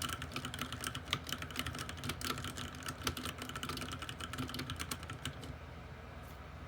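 Fast typing on a Ducky One 2 TKL mechanical keyboard with linear Cherry MX Red switches and PBT keycaps, a dense run of key clicks that stops about five seconds in, leaving a steady low background hum.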